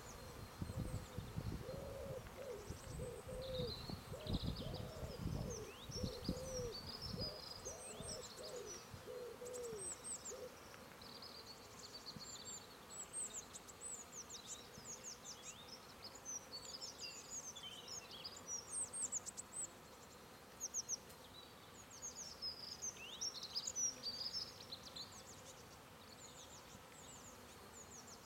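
Honeybees buzzing at a hive entrance as foragers fly in and out, with a low hooting or cooing bird call repeated over the first ten seconds or so, and small birds chirping high and thin throughout.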